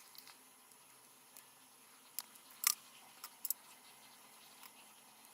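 A few short, sharp clicks and taps of small hard objects being handled, the loudest about halfway through, with a quick double click just after.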